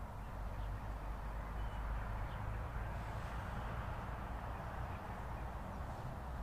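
Steady outdoor background noise, a low rumble with a hiss over it, with a few faint, short bird calls.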